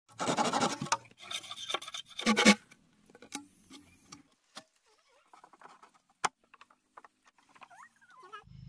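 Rasping, scraping noise in loud bursts over the first couple of seconds, then scattered light clicks and one sharp knock.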